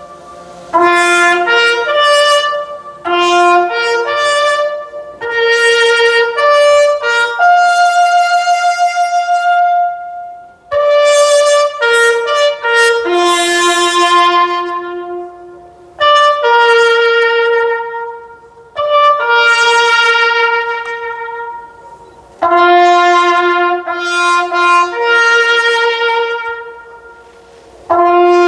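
A solo trumpet playing a slow ceremonial call for a moment of silence: phrases of long held notes, one note at a time, separated by short breaks.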